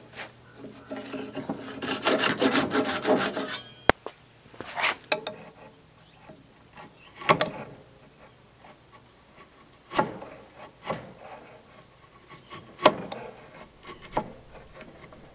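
Hand saw cutting through a square timber beam in a quick run of rasping strokes for the first few seconds, ending in a sharp click. Then a 1½-inch (38 mm) wood chisel cutting out a notch in the beam end: a handful of separate sharp cracks and scrapes as chips split away.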